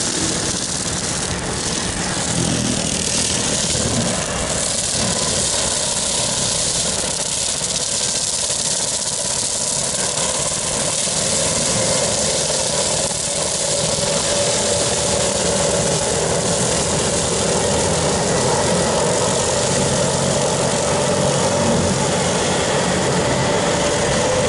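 Bobcat tracked skid steer's diesel engine running steadily under load while its hydraulic brush-cutter attachment mows down tall grass and weeds, with a faint steady whine that grows stronger in the second half.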